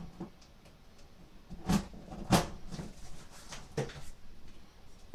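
Cardboard box being handled as a PC case is pulled out of it: a few sharp knocks and scrapes of cardboard, the loudest a little under two seconds in and again about a second later.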